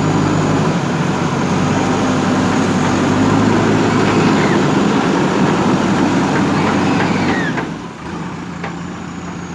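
JCB backhoe loader's diesel engine running hard while it works, then dropping to a lower, quieter run about three quarters of the way in.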